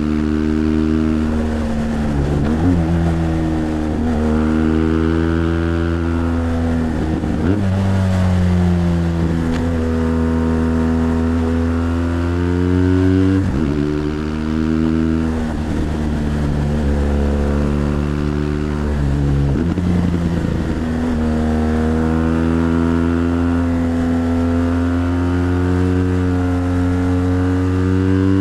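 BMW GS Adventure LC's boxer-twin engine pulling up a mountain road, heard from the rider's seat. Its note rises and falls with the throttle and breaks off briefly several times before climbing again.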